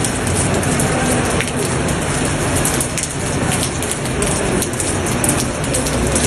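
Floodwater of a swollen river rushing past: a loud, steady noise of churning water with no let-up.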